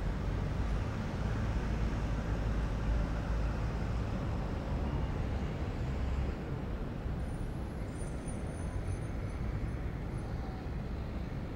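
Road traffic noise: a steady low hum of passing vehicles, easing slightly about halfway through.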